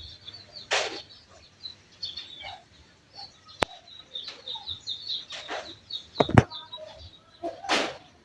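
Small birds chirping many times over, short high chirps. Several brief bursts of noise, a sharp click a few seconds in, and a loud thud a little after six seconds break in.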